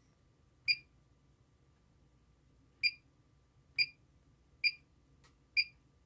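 Button-press beeps of a Miniware DS213 pocket oscilloscope: five short, high beeps at uneven intervals as its menu is stepped through to switch the signal output from sine to square wave.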